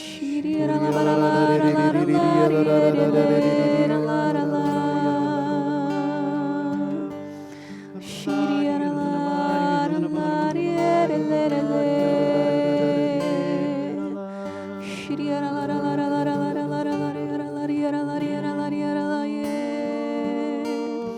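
Slow devotional worship song: voices singing long, wavering held notes over soft accompaniment.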